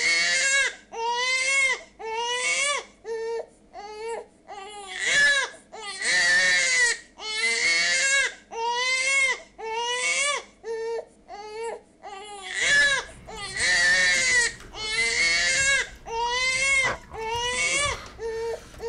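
A baby crying: a steady run of wails, about one a second, each rising and then falling in pitch.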